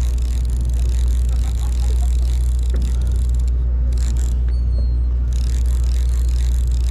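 Sportfishing boat's engine running with a steady low drone, under a hiss that drops out briefly near the middle.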